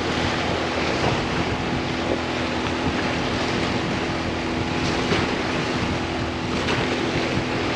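Steady wind and water noise at the shoreline, with a low, steady two-tone hum underneath from an unseen motor or machine.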